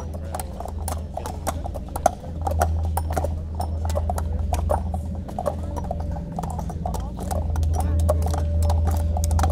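Hatchet chopping into a wooden block, quick irregular strikes of steel into wood, several a second, as a cube of wood is rounded towards a ball. A steady low drone runs underneath.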